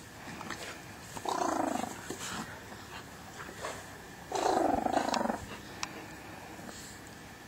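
Dog growling during a play-fight: two growls, a short one about a second in and a longer one about halfway through.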